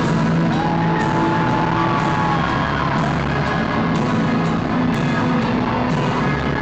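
Live rock band playing loudly through a concert PA, heard from the audience: held guitar or vocal notes over bass and drums.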